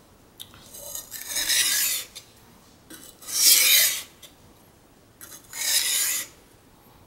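Carbon steel knife blade drawn across the wet 1000-grit side of a Norton combination whetstone while reprofiling the edge. Three scraping strokes, each about a second long, about two seconds apart.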